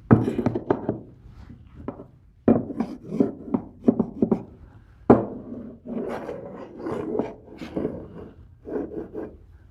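Irregular scraping, rubbing and knocking of wood and plastic as a plexiglass router plate is worked into a tight recess in a wooden table top, with sharp knocks at the start, about two and a half seconds in and about five seconds in.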